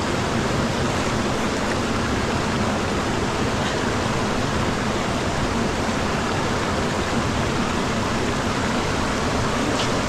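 Steady rushing of a fast whitewater mountain river pouring over rocks.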